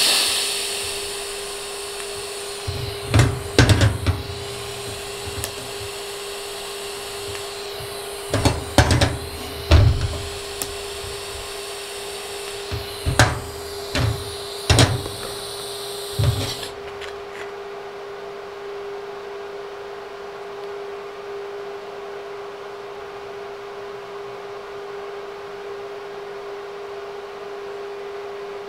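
TIG welding arc, a steady hiss and buzz, tacking a metal angle onto a copper backing strip. It is broken by clusters of low knocks as the piece is handled, and the arc cuts off about two-thirds of the way through, leaving a steady machine hum.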